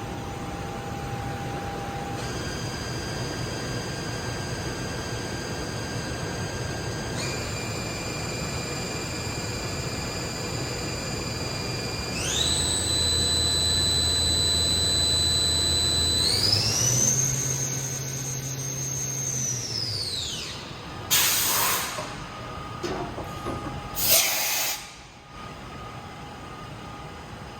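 Hardinge VMC 1000P3 CNC vertical machining center's spindle running up in steps, its whine jumping higher four times and then winding down smoothly to a stop. Two short bursts of hissing air follow over the machine's steady hum.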